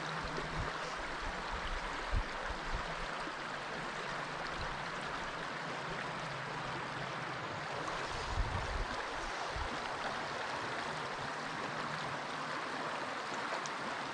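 Shallow trout-stream riffles running steadily, with a soft low bump about 2 seconds in and another about 8 seconds in.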